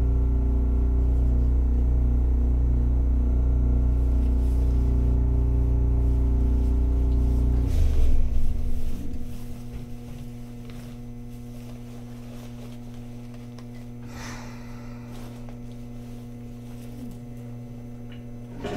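Hakodate City Type 3000 tram heard from on board: a loud, steady low hum for about eight seconds, ending in a short burst of noise. After that only a quieter steady electrical hum remains, with a brief noise again right at the end.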